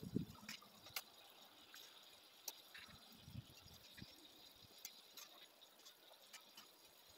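Near silence, with faint scattered ticks and a soft low thump just after the start.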